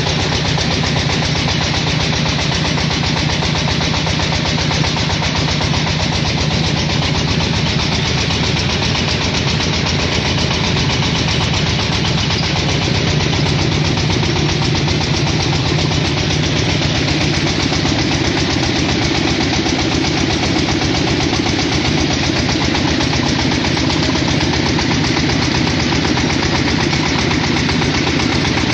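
Diesel engine running steadily, driving a clay brick-making machine as clay is fed into it.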